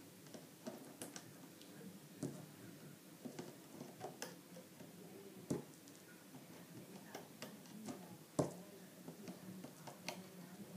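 Small irregular clicks and taps of fingers stretching rubber loom bands over the pegs of a plastic bracelet loom, with a few louder ones, the loudest about eight seconds in.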